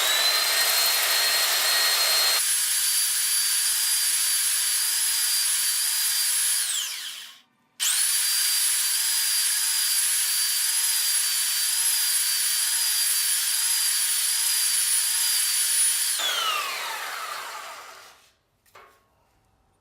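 Electric sander running with a high whine while the end of a galvanized steel pipe is ground sharp on it. It spins down and stops about seven seconds in, starts again at once, and winds down with a falling whine about sixteen seconds in.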